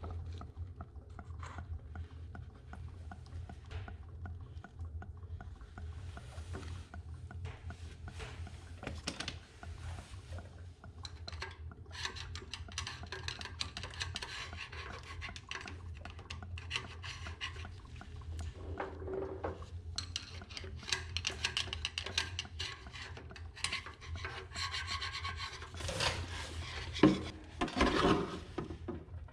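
Irregular hand scraping and rubbing on the tractor's rear axle housing at the seal bore, as the leaking old seal's seat is worked on and cleaned out. The strokes grow denser partway through, with a few louder knocks near the end, over a steady low hum.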